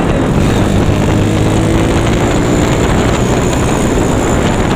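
Motorcycle engine from a Yamaha Mio scooter fitted with a Honda Megapro single-cylinder four-stroke engine, running steadily while riding, mixed with wind noise.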